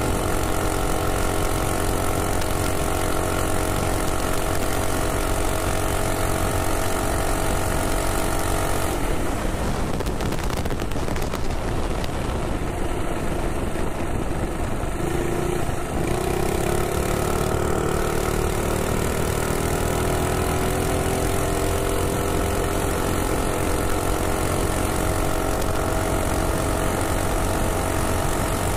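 Minibike's Predator Ghost single-cylinder four-stroke engine running at speed, easing off about nine seconds in as the bike slows. From about sixteen seconds in it pulls back up with a slowly rising pitch as the bike accelerates again, with wind rushing over the microphone throughout.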